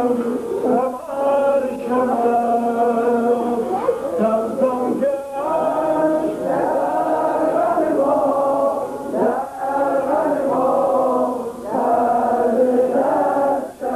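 Voices chanting together in a Yarsan devotional chant, in sustained phrases broken by short pauses every few seconds.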